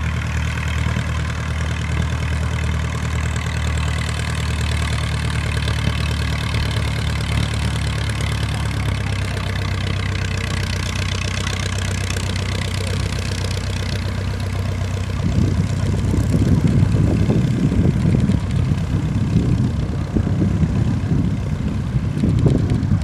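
Piston engine of a de Havilland Tiger Moth biplane running steadily at low power as the aircraft taxis on grass. From about two-thirds of the way through, gusts of wind buffet the microphone with an uneven low rumble over the engine.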